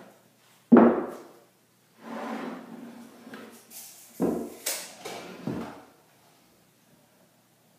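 Glued hardwood strips knocked down onto a plywood workbench and slid against each other: one sharp knock about a second in, a scraping rub, then two more knocks.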